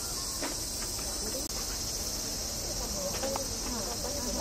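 Cicadas droning in a steady, high-pitched summer chorus, with faint voices murmuring beneath and a couple of soft clicks.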